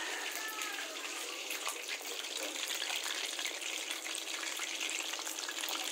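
Chicken pieces deep-frying in hot oil in a wok, a steady sizzle.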